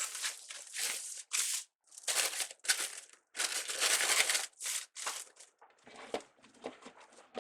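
Deco mesh rustling and crinkling in short irregular bursts as it is handled, while pipe cleaner ends are folded under and tucked into it.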